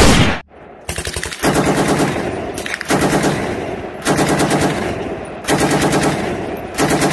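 Electronic machine-gun sound effect for a toy M60: a sharp crack, then about five bursts of rapid fire, each about a second long, with short breaks between them.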